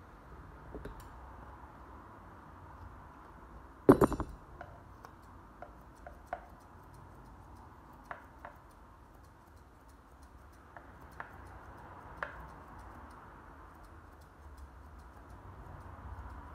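Grooming scissors snipping the synthetic coat of a plastic model dog head: scattered short metallic snips and clicks, with one loud clack about four seconds in.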